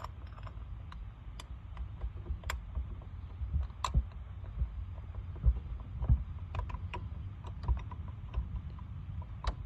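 Scattered, irregular light clicks and knocks of metal parts being handled as the thermostat housing is pushed back into place on the engine, over a low steady background rumble.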